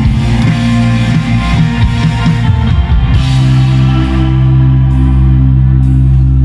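Live rock band playing loud: full band with drums, then about three seconds in a held low guitar-and-bass chord rings on under cymbal strikes about once a second.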